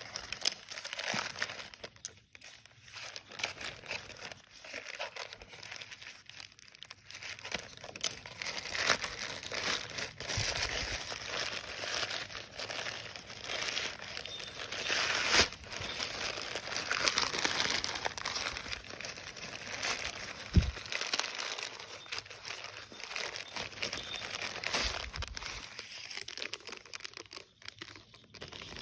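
Packaging being handled and unwrapped by hand while a clothing parcel is unboxed: continuous crinkling and rustling with many small crackles and a few sharper snaps.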